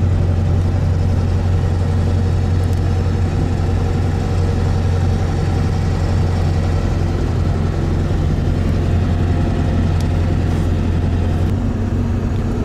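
Pickup truck's engine drone and road noise heard from inside the cab while driving on the highway, a steady low hum under a wash of tyre and wind noise. A little before the end the low hum drops slightly.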